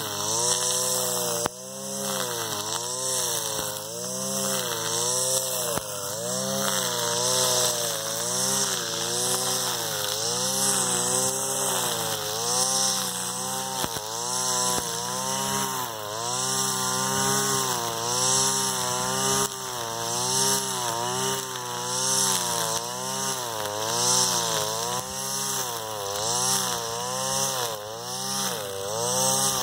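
Brushcutter with a nylon line head running at high revs, cutting through tall, thick grass. Its engine note dips and recovers about once a second as the spinning line bites into the grass a little at a time, over a steady hiss of line on grass.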